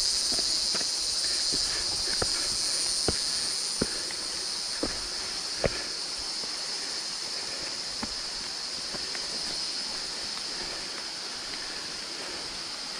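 Steady high-pitched drone of a jungle insect chorus, with footsteps and small snaps on a dirt trail ticking through it; the footfalls thin out after about eight seconds.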